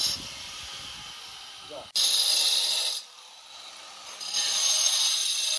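Angle grinder working the edge of a granite countertop slab: high-pitched grinding in two loud bursts of about a second each, with the disc running lighter in between.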